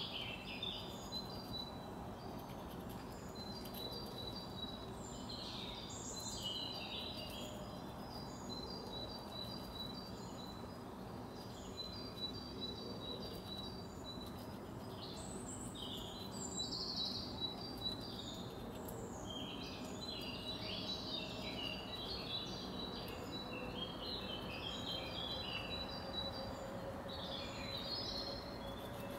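Small songbirds chirping and singing throughout, including quick runs of rapidly repeated high notes, over a steady low background hum.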